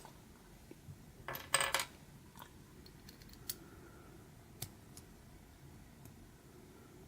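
Hard plastic LEGO Technic pieces clattering and clicking as they are handled: a short burst of rattling about a second and a half in, then single sharp clicks about every second.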